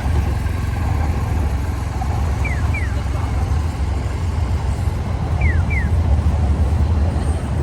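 Steady low rumble of city street traffic. Over it, a pair of short falling electronic chirps repeats about every three seconds.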